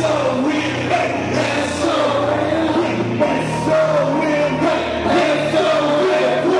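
Loud live hip-hop performance: a backing track with steady bass notes under a melodic sung vocal line.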